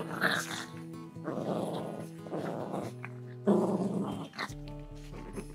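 Small dogs play-fighting, growling in about four rough bursts of up to a second each, over background music.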